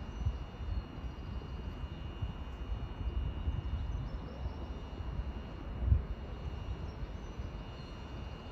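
A steady low rumble with a faint high whine, and a single thump about six seconds in.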